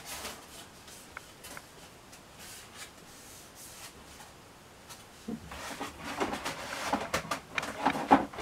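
Handling noise from moulded foam model-jet parts and their packaging: rubbing, scraping and small knocks, faint for the first few seconds and busier from about five seconds in.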